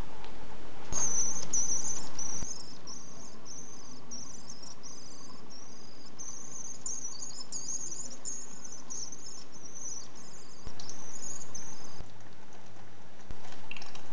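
Young common swift (Apus apus) near fledging, giving a rapid run of thin, high, trilling screech calls. The calls start about a second in and stop near the end.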